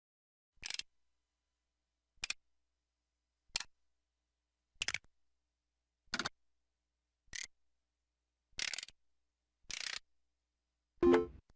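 LG-SH130 mobile phone playing a series of short, noisy synthesized sound effects from its Yamaha MA-7 sound chip, one after another about every second and a quarter, eight in all, the later ones a little longer. Near the end a short pitched beep starts.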